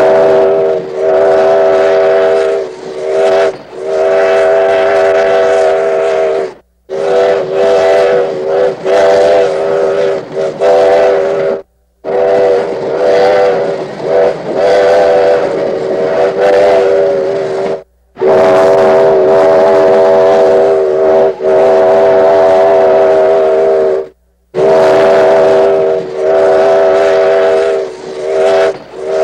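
Steam locomotive whistle blowing a series of loud blasts, some long and some short, each a steady pitched tone with a few brief breaks between them.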